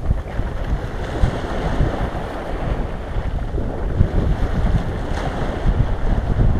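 Wind buffeting the microphone over the wash of small sea waves breaking across ice-covered stones at the shoreline, rising and falling in gusts.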